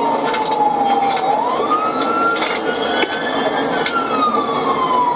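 Police car siren on a slow wail, its pitch sliding down, rising, then falling again over a few seconds, over a steady rumbling noise with a few short clicks.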